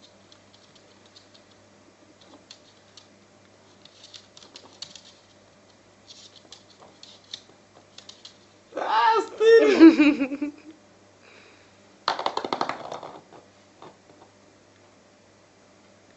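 Light, scattered clicking on a laminate floor as a Maltese dog moves about among horse chestnuts. About nine seconds in a person's voice sounds loudly for two seconds, and a second, shorter vocal burst follows about twelve seconds in.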